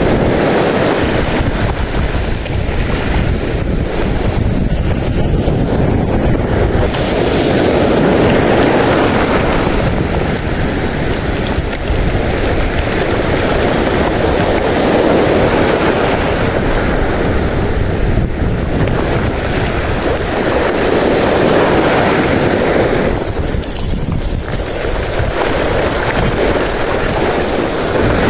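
Strong wind buffeting the microphone: a loud rushing noise that swells and eases every few seconds.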